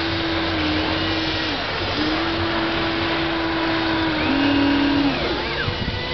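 Small electric motors and gearboxes of a Hobby Engine RC toy excavator whining as the boom and bucket move. The whine stops briefly about one and a half seconds in, then starts again, and drops in pitch about four seconds in before cutting off.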